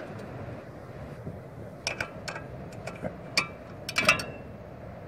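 Ratcheting wrench clicking and clinking against metal as a nut is turned on the engine. The irregular sharp metallic clicks begin about two seconds in.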